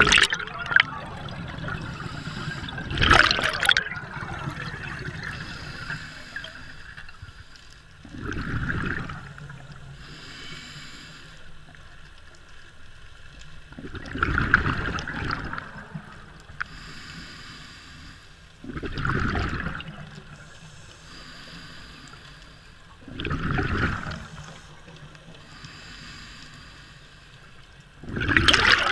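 Scuba diver breathing through a regulator underwater: roughly every five seconds a loud rush of exhaled bubbles lasting about a second, with a quieter hiss between breaths.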